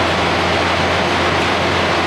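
Idling semi-truck diesel engine, a steady low hum under a constant rushing hiss.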